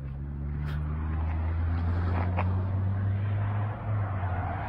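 A motor vehicle engine running steadily, heard as a low, even hum.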